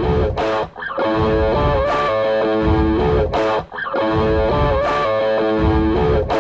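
Background rock music: a distorted electric guitar solo over a repeating stomp-and-clap beat that comes round about every second and a half.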